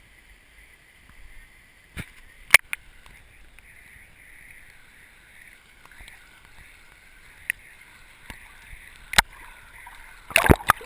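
Muffled river water rushing steadily, heard by a GoPro held underwater in its waterproof housing, with a few sharp knocks and a burst of louder knocks and splashing near the end.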